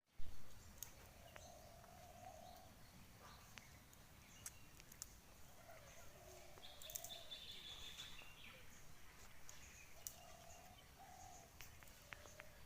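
Faint outdoor ambience with birds calling: soft, low cooing calls repeating every few seconds, with scattered higher chirps. A short knock comes right at the start.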